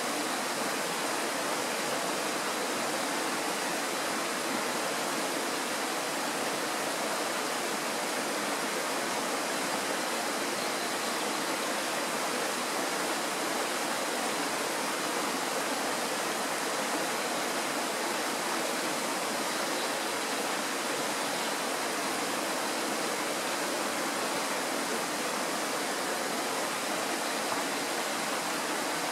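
The Kirowa Woda, a Tatra mountain stream, rushing steadily behind a thicket: an even, unbroken water noise with no change in level.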